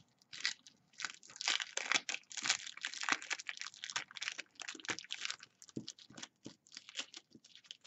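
Clear plastic packaging sleeve with tissue paper inside, crinkling as hands press and handle it, in quick, irregular crackles.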